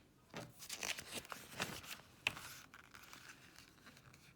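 Paper rustling and crinkling in a few short bursts with a sharp click a little after two seconds in: a page of a picture book being turned.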